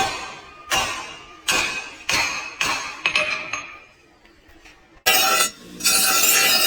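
Hammer blows on iron being forged: about six sharp strikes in the first three seconds, each ringing out briefly. About five seconds in, a loud steady harsh noise starts, breaks off for a moment and resumes.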